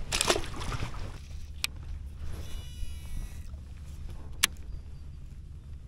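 Handling noises aboard a fishing kayak over a steady low rumble: a short rush of noise at the start, a sharp click, a brief buzzing rattle in the middle and another sharp click near the end.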